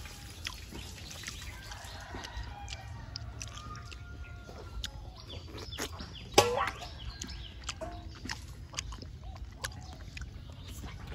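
Someone eating a ripe mango: scattered wet mouth smacks and slurps, with short bird calls in the background and one louder sudden sound about six seconds in.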